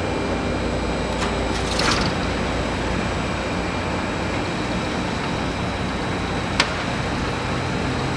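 Airbus A320neo's turbofan engines running at taxi power: a steady jet rumble and hiss with a faint high whine. A single sharp click about six and a half seconds in.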